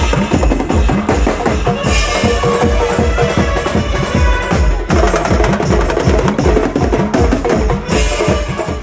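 Loud wedding-procession (baraat) dance music with a fast, heavy drum beat and a sustained melody over it.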